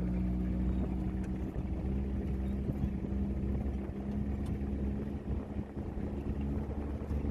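Vehicle engine running at a steady pitch, a constant low hum, easing off slightly about five seconds in.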